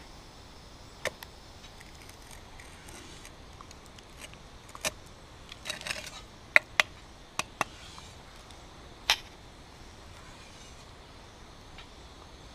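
A series of sharp clicks and taps, scattered irregularly with a short cluster around the middle, over a faint steady hiss.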